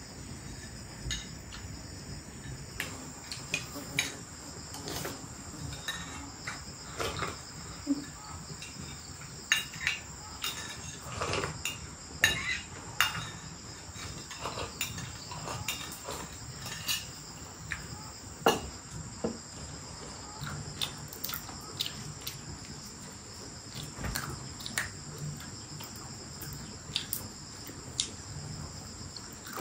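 Crickets chirping in a steady chorus, with frequent light clinks and knocks of dishes and utensils, a few of them sharper and louder.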